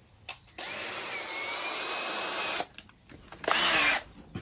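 Power drill driving a mounting screw: a steady run of about two seconds with a wavering motor whine, then a short, louder burst near the end.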